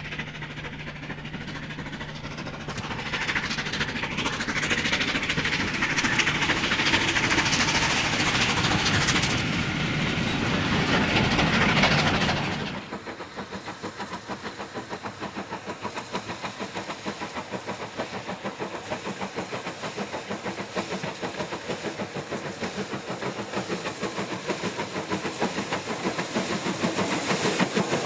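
Bulleid Pacific steam locomotives hauling trains. For the first half, one works hard with a loud, continuous exhaust roar that ends abruptly about halfway through. In the second half, another approaches with regular exhaust beats about two a second, growing louder near the end as it passes close, with its wheels clicking over the rail joints.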